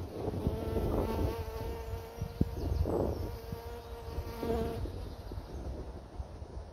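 A flying insect buzzing close to the microphone, a steady hum that starts about a second in and stops abruptly about two-thirds of the way through, over low wind rumble on the microphone.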